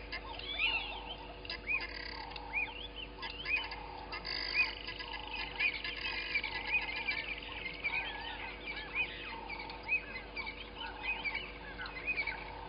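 Natural chorus of frogs and birds calling together: many short, overlapping chirps that rise and fall, repeating through the whole stretch, over a faint steady hum.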